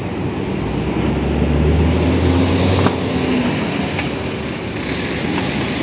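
A motor vehicle's engine passing close by: a low hum that swells over the first three seconds and then fades, over steady road noise, with one short click near the middle.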